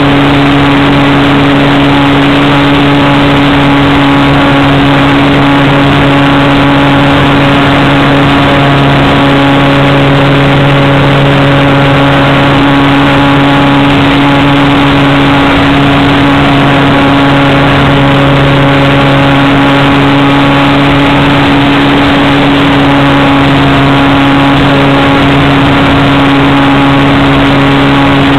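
Brushless outrunner motor and propeller of an RC glider, heard close up from an onboard camera: a loud, steady drone with a strong low hum and a dense hiss, unchanging throughout.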